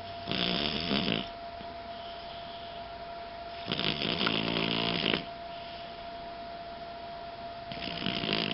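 Snoring: three long, rasping snores about three and a half seconds apart, the last still going at the end.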